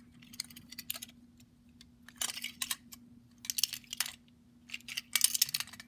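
Diecast metal toy cars clicking and clinking against each other and against fingers as they are handled, in four short bursts of rapid clicks over a faint steady hum.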